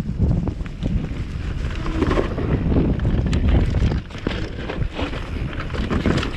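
Wind rushing over an action camera's microphone, mixed with frequent rattles and knocks from a Commencal V4.2 downhill mountain bike rolling over rough trail.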